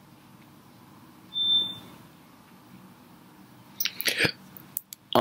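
A single high electronic beep, a steady tone lasting about half a second, a little over a second in. Near the end come a few sharp clicks and taps of something being handled.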